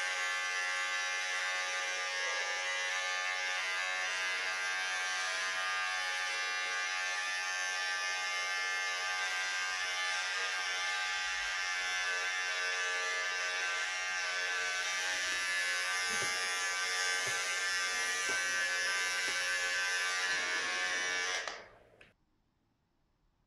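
Corded electric hair clippers buzzing steadily while cutting hair close to the scalp, then switched off, the sound cutting off suddenly near the end.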